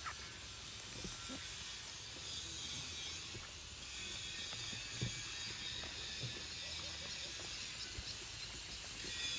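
Steady high-pitched insect trilling with a fast, ratchet-like pulse, with a few soft footfalls.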